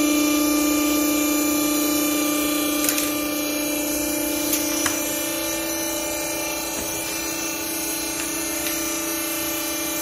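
Vertical hydraulic baler's electric motor and hydraulic pump running with a steady hum, a few light knocks over it near the middle.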